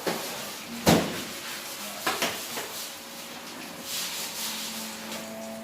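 Kitchen handling noises: a sharp knock about a second in, a couple of softer knocks a second later, then rubbing and scraping, as of a plate and utensils being set down and moved about.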